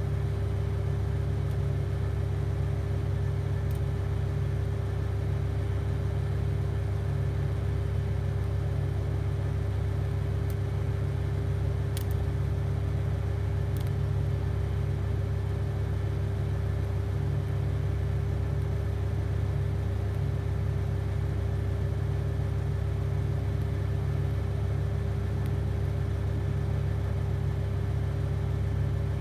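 TIG welding arc buzzing steadily as a weld is run around a piece turning on a foot-driven rotary positioner, with a couple of faint clicks about halfway through.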